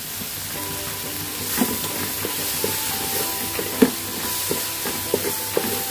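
Onion-tomato masala with chilli and turmeric powder sizzling in a pan while a spatula stirs it, with knocks and scrapes of the spatula against the pan; the sharpest knock comes a little under four seconds in. Soft background music plays underneath.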